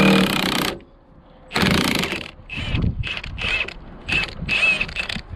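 Tight steel part of a hydraulic steer cylinder being forced loose, with metal grinding and squealing in a series of strokes. The strokes come in a few longer pushes, then a quicker run of short squeaky ones.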